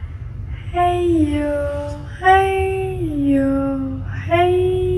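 A voice calling a sing-song "hey yo" about three times, each call stepping down from a higher note to a lower one, over a steady low hum.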